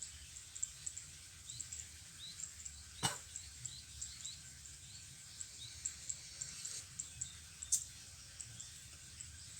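Outdoor ambience of many short, high-pitched chirps and ticks from small wild animals, with a single sharp click about three seconds in and another high click near the end.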